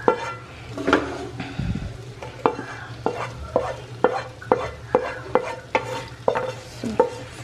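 Wooden spatula scraping masala out of a tilted nonstick frying pan into a steel saucepan of noodles: sharp knocks on the metal pans about twice a second, each with a short ring, between bouts of scraping.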